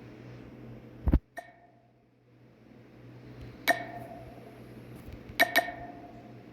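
A low thump, then three sharp metallic clinks that each ring briefly, the last two close together near the end.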